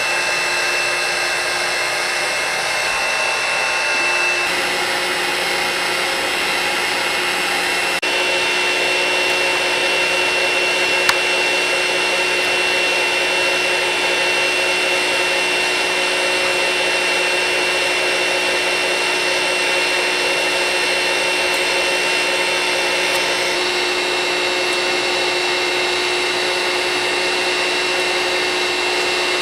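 Wagner Furno 300 heat gun running steadily: a blower rush with a steady motor whine. The tone shifts slightly about four, eight and twenty-three seconds in, and there is a brief click about eleven seconds in.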